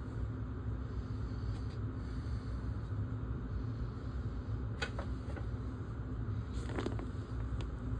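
Steady low rumble with a faint constant hum, and a few light clicks and taps about five seconds in and again near seven seconds.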